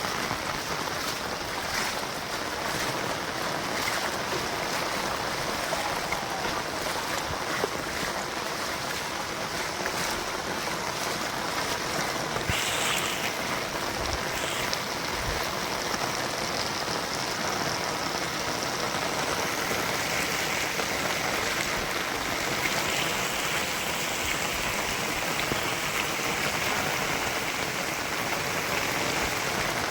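Heavy monsoon rain and running rainwater, a steady rushing noise with no break.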